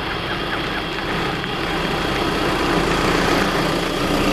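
Motor vehicle engine running with a steady rumble that slowly grows a little louder.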